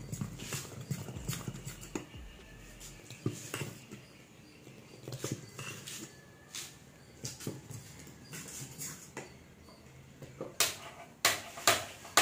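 Metal spoon stirring thick appam batter, clinking and scraping against the stainless steel pot in irregular knocks. Near the end come a few louder sharp clicks from a gas-stove spark lighter.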